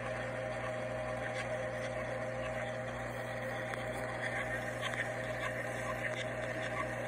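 Steady machine hum with a low drone and a few faint scattered ticks.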